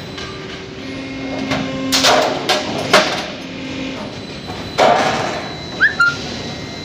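Steel roll forming line running with a steady hum, broken by loud metallic clanks, a cluster about two to three seconds in and another near five seconds. A short rising squeak comes near the end.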